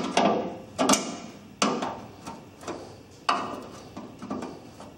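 Pliers gripping and bending a car body's sheet-metal flange, giving about four sharp metal knocks roughly a second apart with lighter clicks between them.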